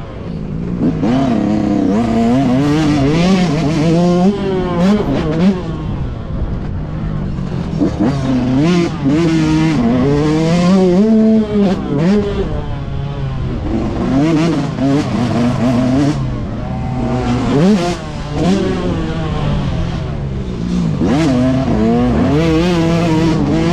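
Yamaha YZ125 single-cylinder two-stroke motocross engine under hard riding, revving up and dropping off again and again as the throttle is worked and gears are shifted.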